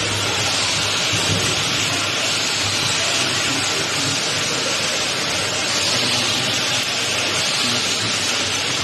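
Automatic bottle-filling machine running: a steady hiss with a low hum underneath.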